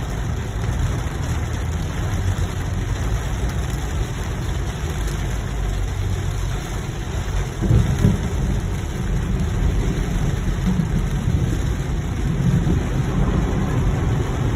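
Steady rain and tyre noise heard from inside a moving car, over a low rumble, with a brief louder swell about eight seconds in.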